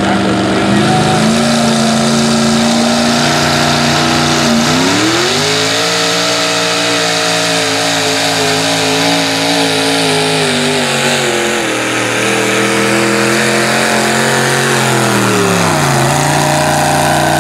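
Single-engine modified pulling tractor's engine under full load, pulling the sled: it revs up sharply about four seconds in, holds high revs that sag slightly for about ten seconds as the pull goes on, then drops back near the end.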